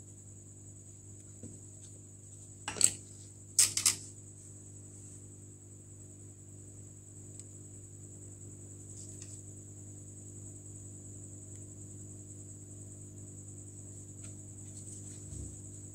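Hot-air rework station running steadily with a low hum and a thin high whine while the phone's power IC is heated. A few sharp clicks, likely tools on the bench, come about three and four seconds in.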